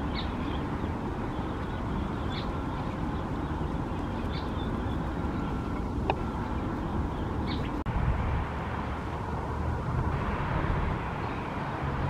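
Mallard ducklings peeping faintly, one short high peep about every two seconds, over a steady low outdoor rumble. The peeps stop and the background rumble changes abruptly about eight seconds in.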